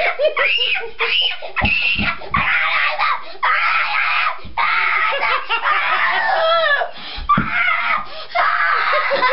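A young boy screaming with excitement in a long string of high-pitched shrieks, with short breaks between them. A few dull thumps come about two seconds in and again near the end.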